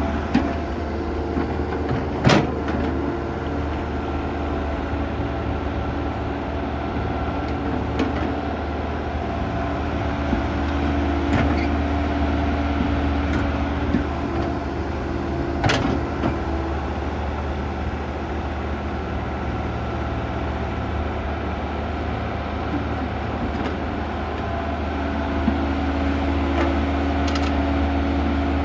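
Kobelco SK120-1 excavator's diesel engine running steadily as it loads a dump truck, with a hydraulic whine that shifts in pitch and about half a dozen sharp knocks scattered through it.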